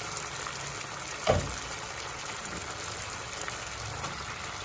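Sauce simmering in a wok, with a steady crackle and bubble. There is a single loud thump about a second in.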